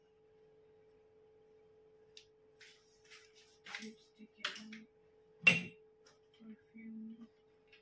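Perfume bottles and small items being handled and moved aside: light rustles and clicks, then one sharp knock as something is set down hard about five and a half seconds in. A steady hum runs underneath.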